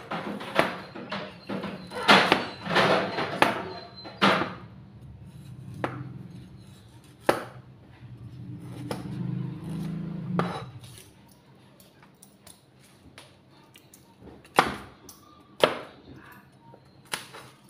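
Cleaver chopping garlic and ginger on a plastic cutting board: a quick run of knocks in the first four seconds or so, then single chops a second or more apart.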